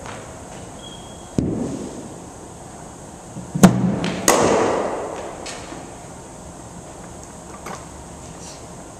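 Cricket net practice against a bowling machine: a dull thump about a second and a half in, then two sharp cracks about two-thirds of a second apart near the middle, as the machine fires the ball and the ball meets the bat. The cracks echo around a large hall.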